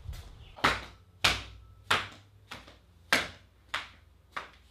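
A run of about seven sharp knocks, evenly spaced at roughly one every 0.6 s, each ringing out briefly.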